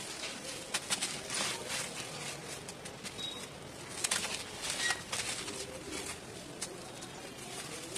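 Hand crushing pressed blocks of dry red dirt: gritty, crunchy crumbling with irregular crackles as the blocks break and dry powder and crumbs fall.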